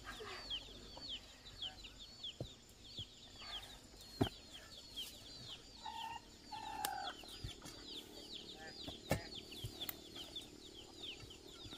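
Chickens peeping steadily in short, high, falling chirps, with a few sharp knocks of a hoe striking the soil, the loudest about four seconds in.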